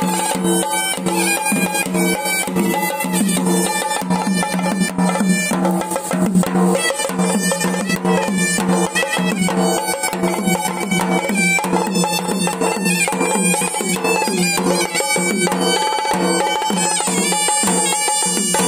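Traditional Sri Lankan ritual music: a horanewa shawm plays a reedy, nasal melody over dense, rapid strokes of barrel drums beaten with sticks.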